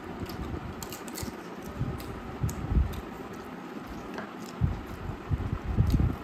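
Two people eating with their hands: chewing and mouth noises while steamed momos are torn apart, with scattered small clicks and a few low thumps against the table.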